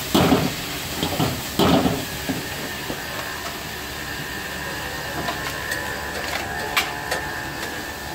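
Vegetable Manchurian being stir-fried in a wok over a gas burner: a few loud scrapes and tosses of the ladle against the wok in the first two seconds, over the steady hiss of the burner flame and the frying. Later there are a couple of sharp clicks about seven seconds in.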